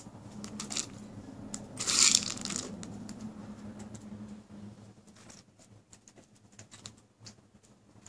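A German shepherd chewing and crunching dry food while lying down, in quick irregular clicks, with a louder rustling crunch about two seconds in; the clicks thin out in the second half.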